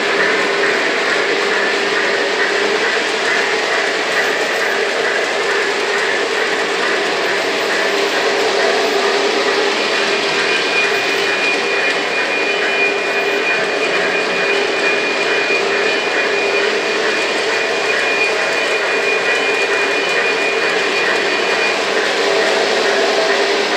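Lionel O gauge model trains running on three-rail tubular track: a steady, even rumble of metal wheels on the rails and the whir of the locomotive motors, with no break. A thin high whine joins about ten seconds in and stops shortly before the end.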